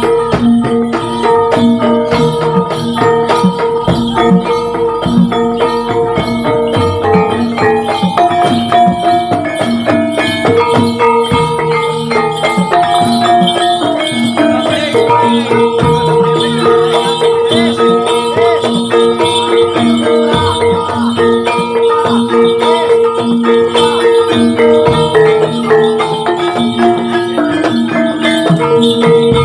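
Javanese gamelan music for a kuda lumping dance: ringing metallophone tones carry a shifting melody over steady percussion strokes, with shaken, rattling percussion on top.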